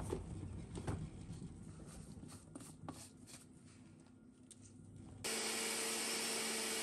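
Plastic clicks and knocks as a small personal blender cup is closed and turned over. About five seconds in, the blender motor starts with a loud, steady whir, grinding rolled oats.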